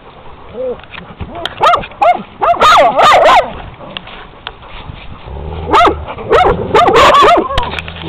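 Dogs barking and yipping in two bursts of short, high calls, one about a second and a half in and another about six seconds in.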